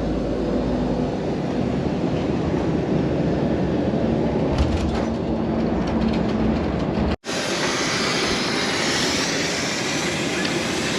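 Steady rumbling noise of a moving vehicle, heard from inside. About seven seconds in it cuts out briefly and comes back as a brighter, hissier rushing noise.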